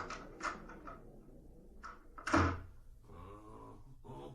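A door opening and closing in a small room, with a few light knocks and a heavier thud about two and a half seconds in, in a binaural recording.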